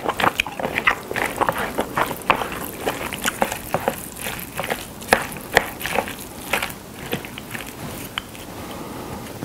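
Wet, sticky squelching and clicking of chopsticks tossing sauce-coated somen noodles and sea snail salad in a bowl: a dense run of short smacks that thins out near the end.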